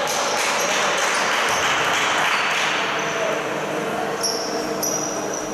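Basketball being played on an indoor hardwood court: the ball bouncing, sneakers squeaking in short high squeaks near the end, and voices from the players and the hall.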